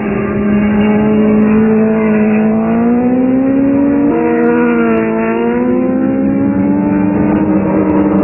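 Racing sport-motorcycle engines at high revs through a corner, more than one heard at once, their pitch sliding down and up as they brake and accelerate, with a sudden step in pitch about four seconds in.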